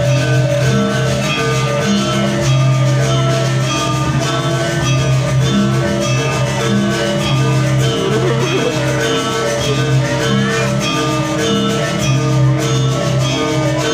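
Background music: a melody of plucked, guitar-like notes over a steady bass line.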